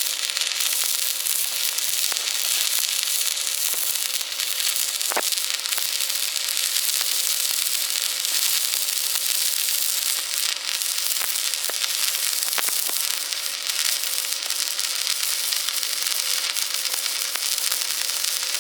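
An electric welding arc burning steadily with a continuous frying, sizzling crackle, with a few small pops along the way.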